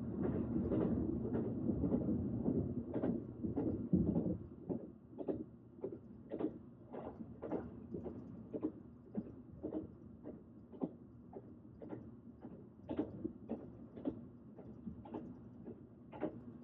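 Train running on the rails: a steady low rumble, louder for the first four seconds and then easing off, with frequent short clicks and knocks from the wheels and carriages.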